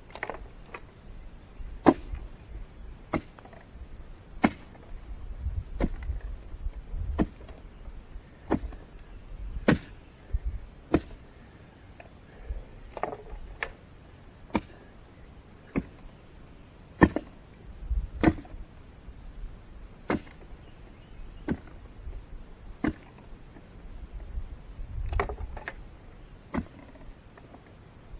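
Hand-digging a post hole in rocky soil: a digging tool strikes the ground over and over, about once every second or so, each a sharp hit with scraping of dirt and stones between strikes.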